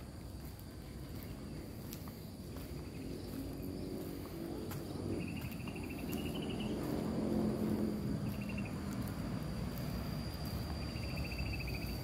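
Insects calling in rural vegetation: a steady high-pitched drone throughout, with three short buzzy trills from about five seconds in. Under them is a low hum that swells around the middle.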